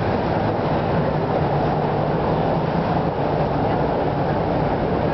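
Steady low rumble of motorboat engines on the water, with a constant noisy wash over it.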